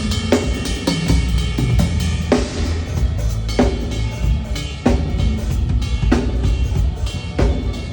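Live band playing, led by a drum kit: bass drum, snare and cymbals over a steady low bass, with a heavy accented hit about every second and a quarter.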